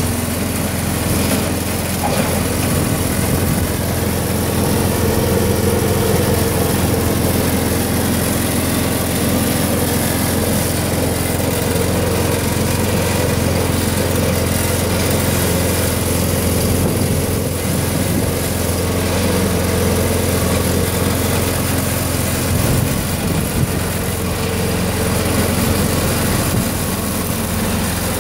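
Komatsu KSS8S III tracked snowblower's small petrol engine running steadily.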